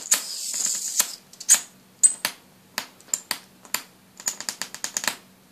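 High-voltage traveling arc (Jacob's ladder) driven by a ZVS driver, crackling: a continuous hiss with snaps for about the first second, then irregular sharp snaps, a few a second. A faint steady hum runs underneath.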